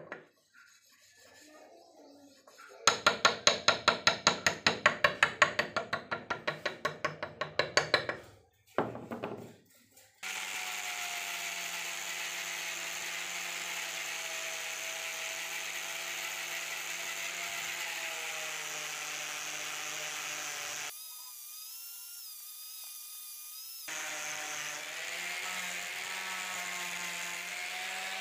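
Hand-held abrasive block rubbed back and forth over a steel axe head, about three strokes a second for several seconds. Then an angle grinder fitted with a polishing pad starts and runs steadily on the steel for mirror polishing, its tone thinning for a few seconds and beginning to wind down at the very end.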